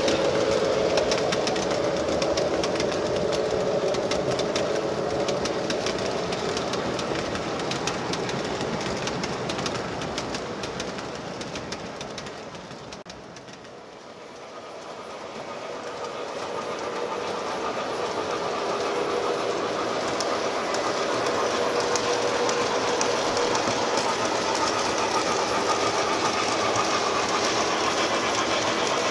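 O scale model trains running on the layout's track: a steady rumble with rapid clicking of wheels over the rails and the hum of the locomotives. The sound fades down about halfway through and builds back up.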